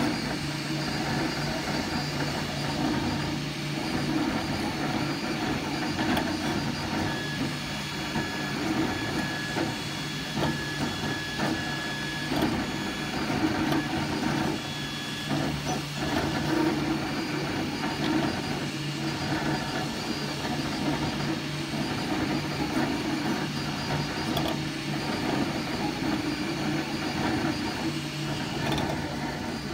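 JGAURORA metal-frame 3D printer running: stepper motors whine in short, changing tones as the print head moves along its rails, over a steady fan hum.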